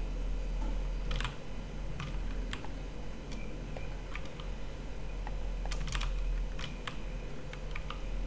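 Irregular clicks of a computer keyboard and mouse, about a dozen of them scattered through the stretch, over a steady low hum.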